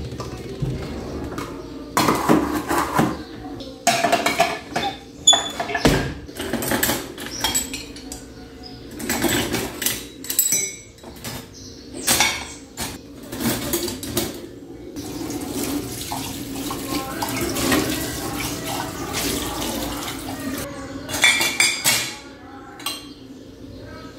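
Pots, lids and kitchen utensils clattering and clinking as they are handled and set in and out of a wire dish rack: many irregular knocks of metal on metal, scattered through the whole stretch.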